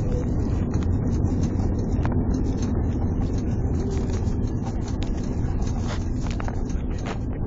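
Cabin noise of an Airbus A330-300 on its landing roll: a loud, steady rumble of engines, rushing air and wheels on the runway, with scattered clicks and knocks.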